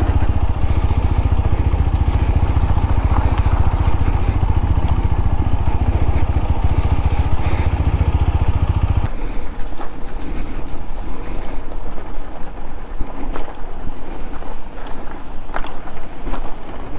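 TVS Apache RTR 200 4V's single-cylinder engine running with a fast low beat as the motorcycle is ridden over a rough off-road track. About nine seconds in the engine beat falls away, leaving a rougher noise with scattered knocks.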